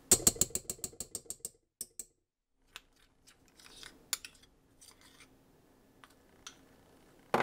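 Metal spoon clicking against a glass measuring cup and a stainless-steel mixing bowl while peanut butter is scraped out. A fast run of clicks fades over the first second and a half, then come a few scattered clicks and a soft scrape.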